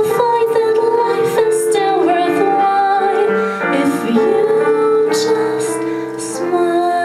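A woman sings a slow song into a microphone, holding long notes, with piano accompaniment.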